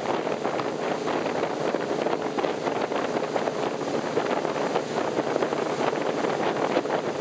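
Wind buffeting the microphone on a moving tow boat, over a steady rush of wake water and the boat's engine.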